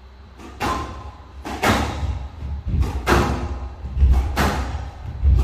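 Squash rally on a glass court: sharp racket strikes and the ball smacking the walls about once a second, each with a short ring, and heavier low thuds about four and five seconds in.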